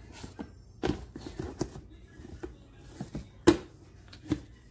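Sharp plastic clacks and knocks as the lid of a small plastic countertop compost bin is handled, about half a dozen irregular knocks with the loudest about three and a half seconds in.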